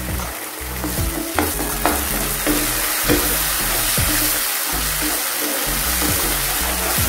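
Onion-tomato masala sizzling in a nonstick pan as a spatula stirs it, with several sharp knocks and scrapes of the spatula against the pan, over background music.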